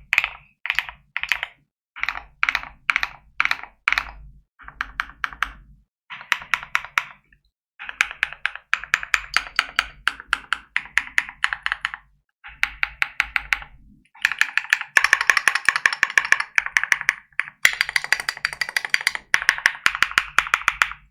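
Keychron Q5 Max mechanical keyboard with MMD Cream V4 linear switches being typed on, with thocky keystrokes. At first single keypresses come about twice a second, then bursts of fast typing follow with short pauses between.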